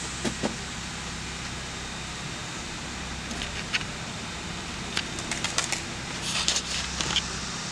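Steady low outdoor hum, with a scatter of short high chirps and clicks in the second half.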